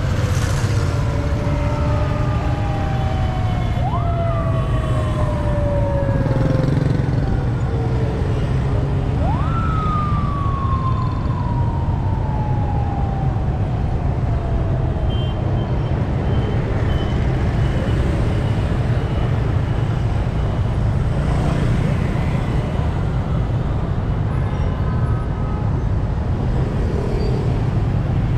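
Police escort sirens sweeping over the steady rumble of city traffic, motorbikes and cars passing. A falling siren tone fades in the first seconds. Then twice, about four and nine seconds in, a siren jumps quickly up and glides slowly back down over several seconds.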